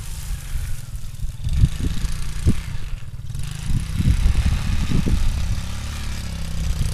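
Small youth ATV's engine running as it is ridden, its rumble rising and falling in level.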